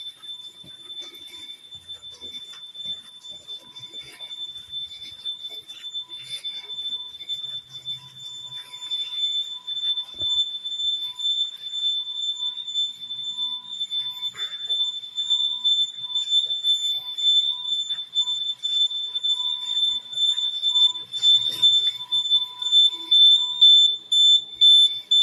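Electronic alarm sounding one continuous high-pitched tone, growing louder toward the end.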